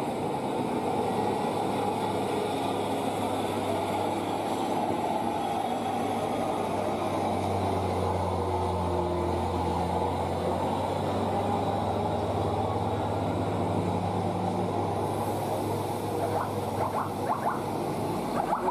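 Heavy diesel engines of trucks and a bus running as they climb a steep hairpin bend: a steady low engine drone that grows fuller partway through, with a few short higher-pitched sounds near the end.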